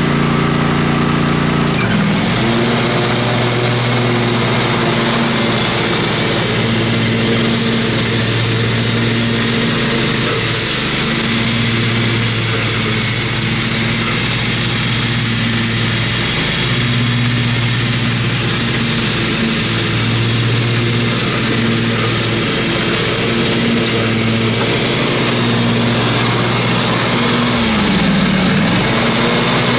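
John Deere riding lawn tractor's engine running steadily as it mows through brush, its note dipping briefly about two seconds in and again near the end.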